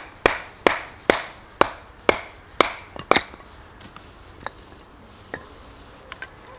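Sharp knocks of a small log being split with a large bushcraft knife, about two strikes a second, seven in a row, then a few lighter taps near the end.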